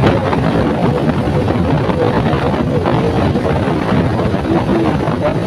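Motorcycle riding along at road speed: a steady rush of engine and wind noise over the microphone.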